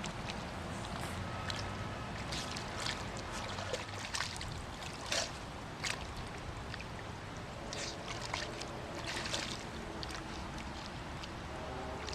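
Shallow water trickling steadily, with scattered soft splashes.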